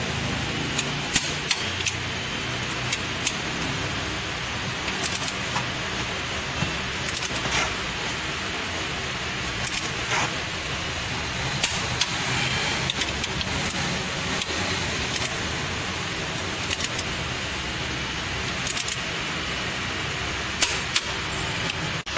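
Sharp metallic clicks and clinks of a socket wrench on an extension being worked on bolts in an aluminium engine cylinder head, coming singly or in quick pairs every second or two, over a steady background hiss.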